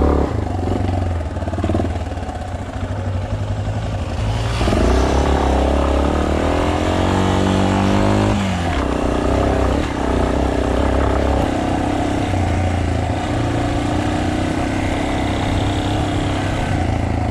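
Trail motorcycle engine heard from the rider's seat, running at low revs, then revving up with a rising pitch for a few seconds from about four seconds in. The pitch drops off sharply near the middle, and the engine settles into steady running.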